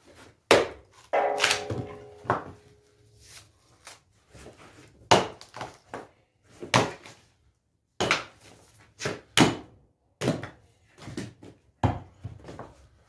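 Axe chopping the thick bark off a tree trunk: a dozen or more sharp, irregularly spaced chops as slabs of bark are split away.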